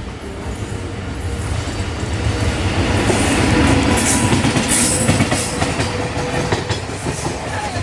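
A train running past, its wheels clattering over the rail joints. It grows louder to a peak about halfway through, then eases a little.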